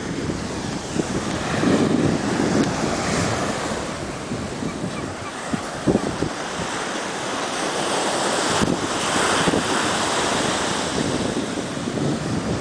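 Atlantic surf breaking and washing up the beach, an even rush that swells and eases as each wave comes in. Wind buffets the microphone, with a few brief knocks.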